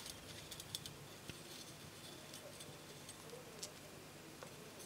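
A few faint, irregular clicks of glass seed beads and 0.4 mm wire as a beaded loop is twisted by hand.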